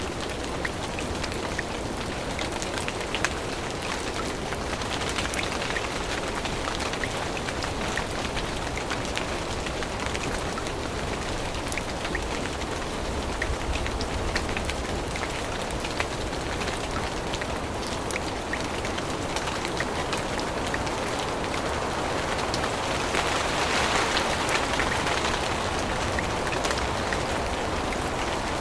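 Steady rain falling on forest leaves, a continuous hiss scattered with many single drops ticking close by. Late on, the rush briefly swells louder.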